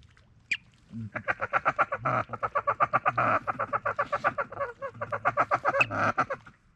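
Duck quacking in a fast, even chatter of about ten notes a second, lasting about five seconds, after a single sharp click about half a second in.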